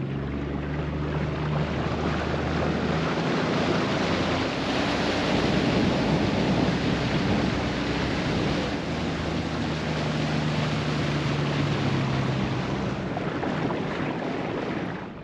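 Motorboat under way: a steady engine hum with the rush of water and wind buffeting the microphone.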